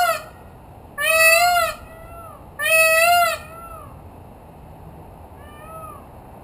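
Peacock calling: a run of loud, high, pitched cries, each under a second long and about a second and a half apart. The last one, near the end, is shorter and fainter.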